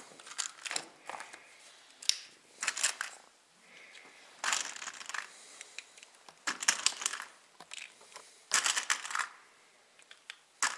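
Handling of a round plastic tin of 9 mm R Knall blank cartridges as cartridges are taken out to load a blank-firing revolver: short rattling, scraping bursts about six times, with small clicks between them.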